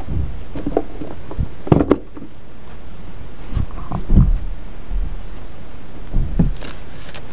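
Rummaging and handling noise: irregular knocks, thumps and rustles as things in a box are moved about and the microphone is jostled, with the loudest thumps about two and four seconds in.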